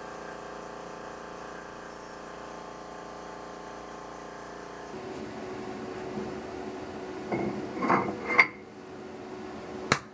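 Steady hum for the first five seconds, then metal clinks and knocks as an aluminum pallet loaded with copper blocks is set down onto a Pierson mini pallet receiver on the mill table, ending in one sharp click near the end.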